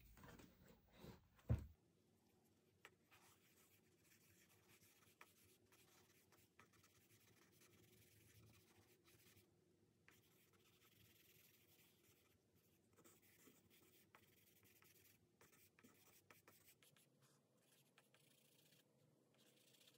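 Stick of charcoal scratching faintly across drawing paper in short, irregular strokes, with a single knock about a second and a half in.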